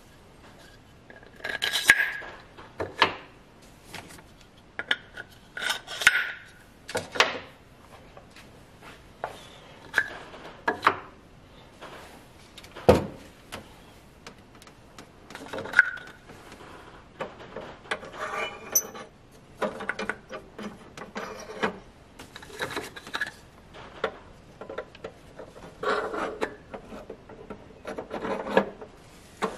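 Hard toy parts being handled and worked on: irregular clicks, taps and short scrapes, with one sharper knock about thirteen seconds in.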